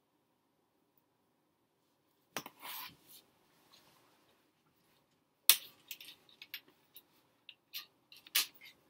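A click and a short rustle, then a run of sharp clicks and taps, the loudest about halfway through and one near the end: small handling noises.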